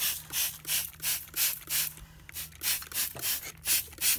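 Exo Terra hand spray mister spritzing water in quick repeated squirts, about three a second, with a short pause about two seconds in, misting a terrarium.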